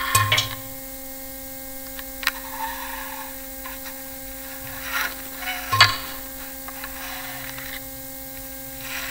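Experimental electroacoustic recording: a steady electrical hum of several held tones, broken by scattered sharp clicks and short crackles, the loudest near six seconds in.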